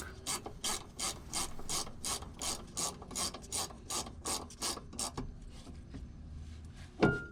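Ratchet wrench clicking in steady strokes, about three a second, stopping about five seconds in. A single loud knock near the end.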